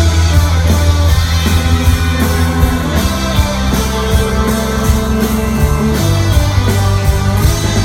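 Live rock band playing an instrumental passage between vocal lines: electric guitar chords over a bass line and a steady drum beat, loud. The chords and bass notes change about three seconds in and again about six seconds in.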